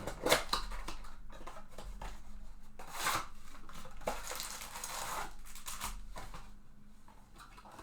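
Trading cards and their packaging being handled close up: cards sliding and rustling against each other, with a sharp click about a third of a second in and further bursts of rustling around the middle.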